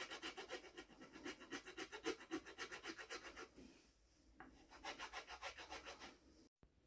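Hand file rasping on a wooden hiking-stick shaft in quick back-and-forth strokes, about five a second. The filing pauses about three and a half seconds in, then starts again briefly.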